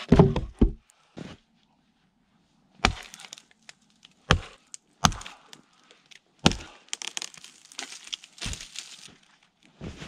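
Axe chopping into a standing dead tree trunk: about seven sharp woody strikes a second or so apart, with smaller cracks and splintering between the blows in the later seconds.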